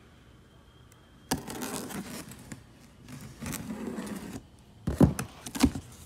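Box cutter slitting the packing tape along a cardboard box, in two scraping, tearing strokes, followed near the end by a few sharp knocks of the cardboard box being handled and opened.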